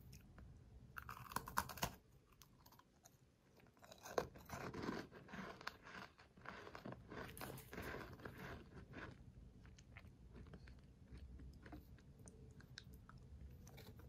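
Crunchy chewing of a crisp, sugar-coated almond cookie, coming in a few bouts with short pauses between.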